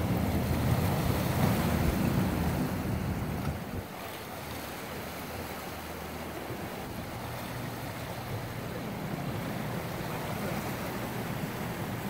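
Waves washing and breaking against a rocky shoreline, with a low wind rumble on the microphone that drops away about four seconds in.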